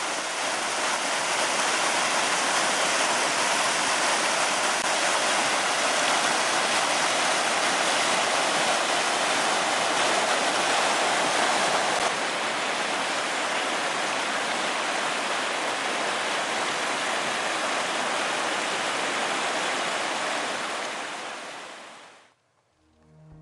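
Mountain stream rushing over rocks: a steady rush of water that drops a little in level about halfway through and fades out near the end.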